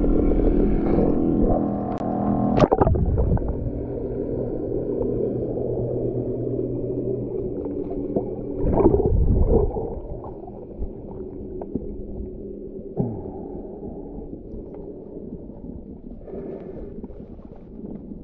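Muffled sound picked up with the camera held underwater. A steady motor drone from a small passing boat fades out about three seconds in, leaving a low, murky water rumble with a louder surge about nine seconds in.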